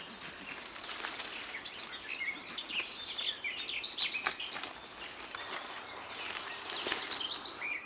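Small songbirds chirping in leafy woodland, over the rustle of branches being pulled and handled. A few sharp cracks of wood cut through, the loudest about seven seconds in, as a honeysuckle-twisted stick is worked free with a hand pruning saw.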